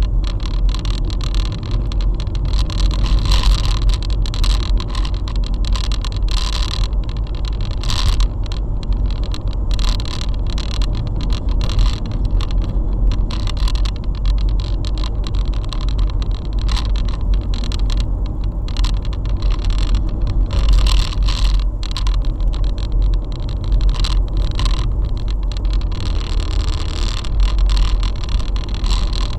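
Car driving along a road, heard from inside the cabin through a dashboard camera: a steady low rumble of engine and tyres, broken by frequent crackling clicks.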